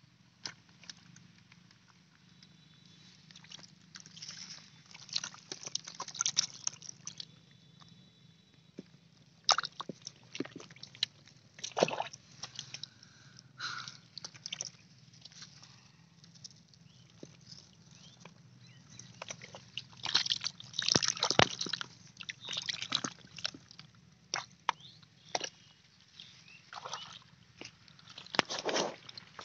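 Shallow muddy water and wet mud sloshing and splashing as fish are grabbed by hand and dropped into a plastic basin of live fish. The splashes come irregularly, in busier spells a little past halfway and again near the end.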